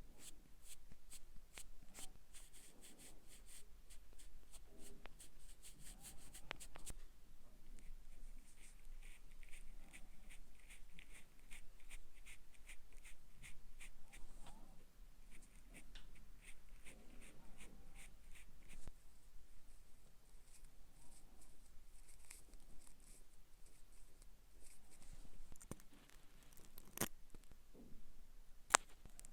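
Makeup being applied close to the microphone: a steady run of light, rapid taps and brush strokes, several a second, with one sharper click near the end.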